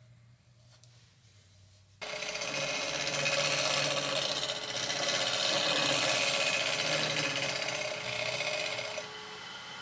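Woodturning lathe running while sandpaper is pressed against a spinning epoxy-resin and pine-cone bowl: a loud, steady rasping hiss over the lathe's motor hum. It starts abruptly about two seconds in, and near the end it drops back to the quieter hum of the lathe alone.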